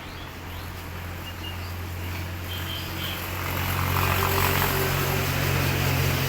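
An engine running with a steady low hum, growing louder from about halfway through.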